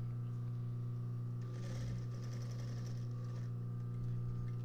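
Industrial sewing machine running with a steady motor hum while stitching through denim, with a stretch of brighter stitching noise around the middle.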